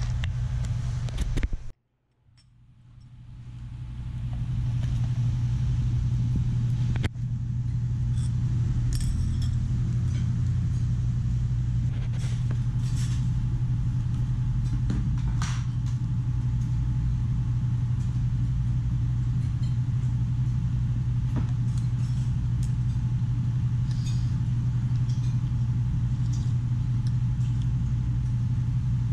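A steady low machine hum. It cuts out about two seconds in and fades back up, and a few light clinks of a metal spoon against a soup bowl come through.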